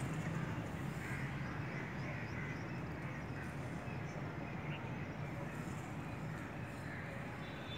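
Steady outdoor background noise with a low hum, with a few faint, distant bird calls.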